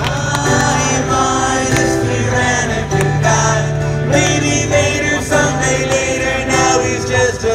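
Live rock band playing an upbeat song with guitars, bass and drums, with singing over it.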